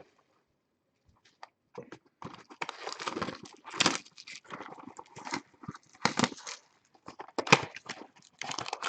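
Cardboard card box and its packs being handled and torn open: irregular rustling, scraping and tearing, starting about two seconds in.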